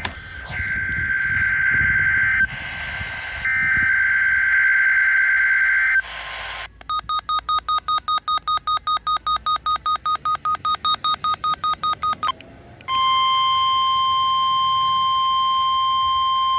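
Emergency alert broadcast tones: about six seconds of warbling data bursts (the EAS/SAME header), then a beep pulsing about four to five times a second, then, about 13 seconds in, the steady single-pitch National Weather Service warning alarm tone of around 1050 Hz.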